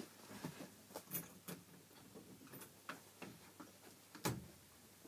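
Faint, scattered knocks and small clicks of a person moving about a room on foot, with one louder thump about four seconds in.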